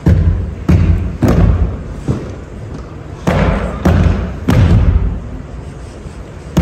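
Step-routine stomps on a wooden stage: about seven heavy hits in an uneven rhythm, one of them softer, each echoing in the hall.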